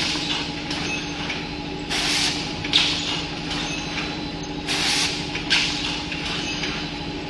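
Toilet paper roll packaging machine running with a steady hum. A short hiss comes about every two and a half seconds, with an occasional sharp clack, in time with its work cycle.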